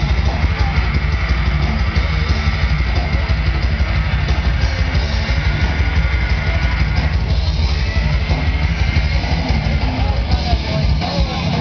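Live rock band playing loudly, with electric guitar and drums and a heavy low end, steady throughout.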